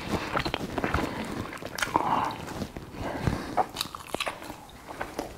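A person chewing sea bream eaten by hand, close to the microphone, with irregular mouth clicks and smacks.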